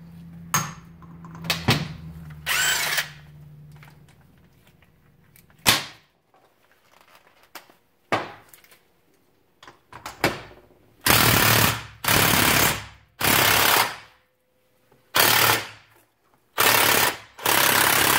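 Cordless DeWalt impact wrench hammering on the output coupling nut of a Velvet Drive marine transmission, in six bursts of about a second each in the last third. A few knocks of metal parts come before them.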